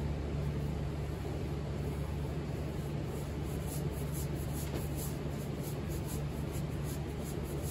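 A steady low hum of workshop background noise, with faint, light scratchy strokes now and then in the second half.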